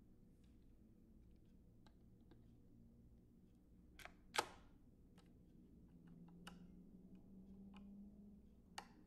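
Metal head cover of a Sony TC-560D reel-to-reel deck being fitted: a sharp click about four seconds in as it seats, with a few lighter clicks and taps around it and another near the end as a screwdriver goes to its screw.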